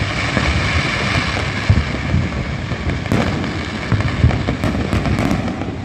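Fireworks going off across the city: a continuous mass of distant booms and crackling, with sharper pops and cracks coming thicker from about halfway through.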